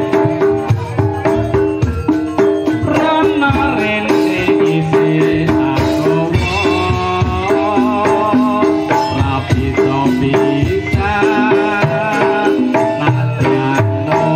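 Javanese gamelan music accompanying a barongan dance: steady hand-drum beats under repeating struck metal notes, with a wavering higher melody line coming and going above them.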